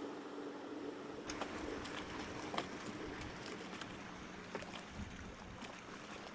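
Ambience beside a moored ship's hull: a wash of noise and a faint steady hum. From about a second in come irregular light clicks and knocks.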